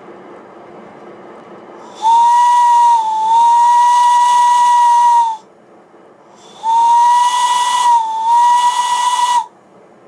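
Modified model-locomotive whistle, a shortened CME Engineering whistle in a resonance chamber, blown twice on compressed air: two loud blasts of about three seconds each, a steady whistle tone over air hiss, each dipping briefly in pitch partway through.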